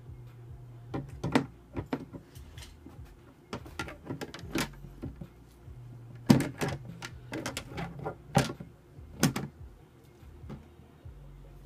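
Leopard gecko moving over paper towel and into a terracotta hide: irregular scratchy rustles and soft knocks, a few sharper ones about six, eight and nine seconds in, over a low hum.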